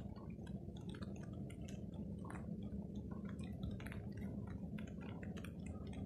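Steady low wind rumble on the microphone while walking on sodden ground, with scattered small ticks and wet squelches.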